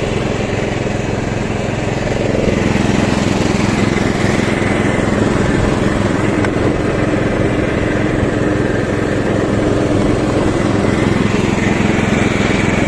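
Engine of a 12.5 hp ride-on lawn tractor running steadily under load while it mows short grass in a fast gear.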